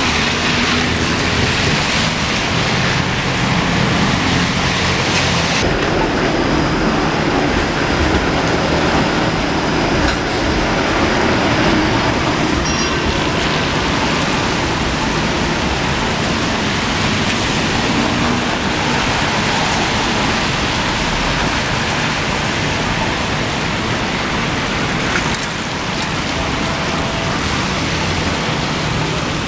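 City street ambience: steady traffic on wet roads, with rain falling.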